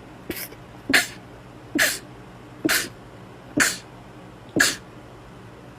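A person sneezing in rapid succession: six short, sharp sneezes a little under a second apart, over a faint steady hiss.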